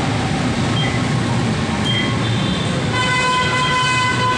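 Crowd hubbub in a busy rail-station concourse at the fare gates, a steady din. A short electronic beep, typical of a turnstile card reader, sounds about a second in and again near two seconds. A sustained horn tone starts about three seconds in.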